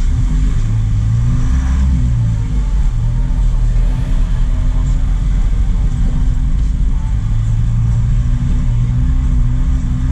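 Truck engine running steadily under way, heard from the cab, with its hum wavering slightly in pitch over a constant rush of road noise.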